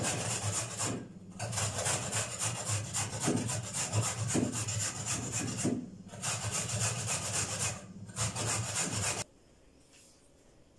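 Raw carrots being grated on a hand-held metal grater: quick rasping strokes, with short breaks about a second in and again near six and eight seconds. The grating cuts off about nine seconds in, leaving near silence.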